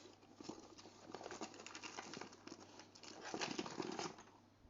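Close handling of a small plastic hearing aid and its parts: a quick run of light clicks, taps and scrapes, busiest about three seconds in, fading away near the end.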